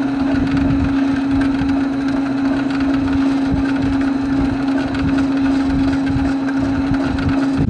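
Ski rope tow's wheel and drive running, a steady mechanical hum with one held tone.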